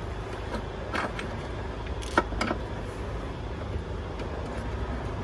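A few sharp clicks and knocks as a battery hold-down bracket is handled and set against the base of a car battery in a trunk, the loudest a little after two seconds in, over a steady low rumble.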